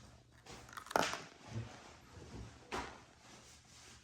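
Two sharp clicks or knocks, one about a second in and another near three seconds, with a couple of faint low thuds between them.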